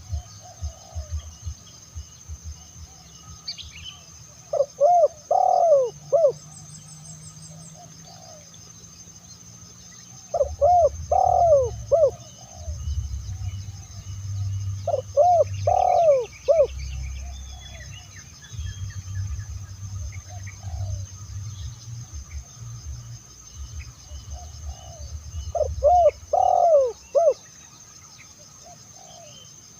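Spotted dove (tekukur) cooing: four loud, rolling coo phrases, each about a second and a half long, repeated every few seconds.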